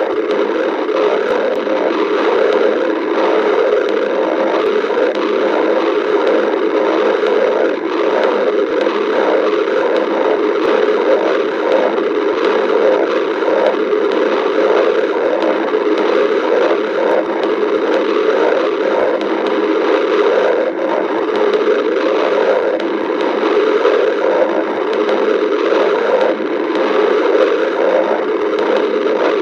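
Stomach growling: a continuous, busy rumbling and churning that goes on without a break.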